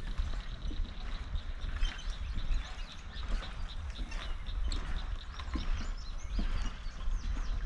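Footsteps knocking on the wooden planks of a swinging suspension footbridge, under a steady low rumble of wind on the microphone, with many birds chirping.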